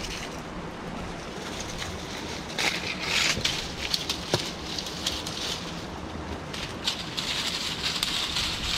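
Dry-leafed cut branches rustling and crackling as they are handled and laid over a shelter frame, louder about three seconds in and again near the end, with one sharp snap about four seconds in. Steady wind noise underneath.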